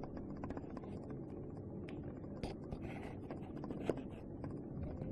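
Quiet room tone with a few faint clicks and taps of the opened drill and its wiring being handled.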